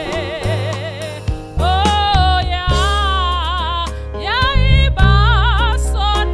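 A woman singing a worship song into a handheld microphone, holding long notes with a wide vibrato, over amplified instrumental backing with a heavy bass.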